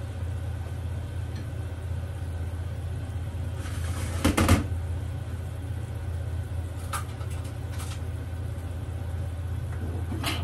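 Strawberry syrup simmering in a frying pan on a gas stove over a steady low hum, with a short clatter about four seconds in and a few light clicks later on.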